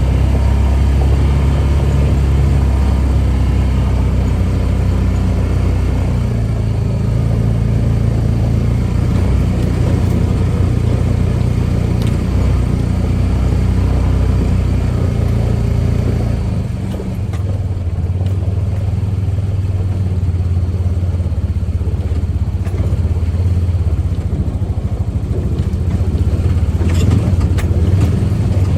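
Honda Pioneer 700 side-by-side's single-cylinder engine running as the machine drives along. The engine note changes about two-thirds of the way through, and a few rattles come near the end.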